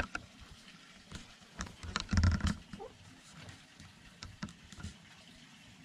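Hens pecking and scratching on a wooden deck: scattered light taps and clicks, with a louder muffled bump about two seconds in.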